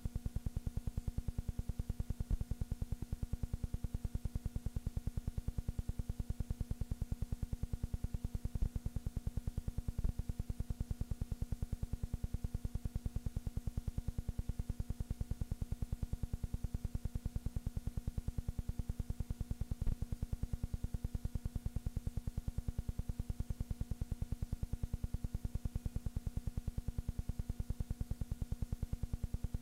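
Steady buzzing hum with a fast, even pulse, the background noise of an old silent-film transfer; no sound from the game itself.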